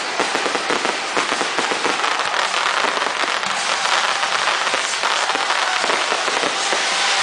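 Fireworks crackling: a dense, rapid patter of many small pops, sharper in the first couple of seconds and then blending into a steady hiss.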